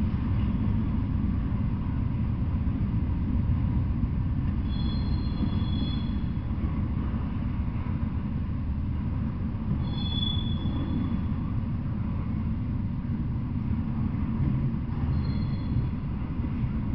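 Double-stack intermodal freight train of TTX well cars rolling past: a steady low rumble of wheels on rails. Three brief high-pitched wheel squeals come about five, ten and fifteen seconds in.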